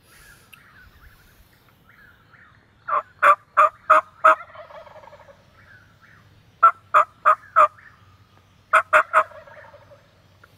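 Hen-turkey yelps on a mouth call: three runs of three to five sharp, evenly spaced notes. Each run is answered right away by a distant wild turkey gobbling, fainter and drawn out.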